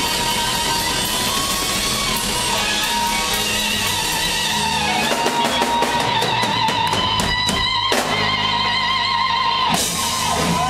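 Live blues-rock band with electric guitar lead: held, bent notes with wide vibrato over a drum kit, with a run of quick drum hits in the second half. A lead note dives sharply in pitch near the end.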